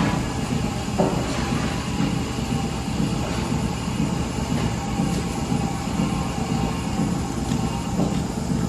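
Steady rumble of a heavy vehicle or machine, with a low pulse recurring a little more than once a second.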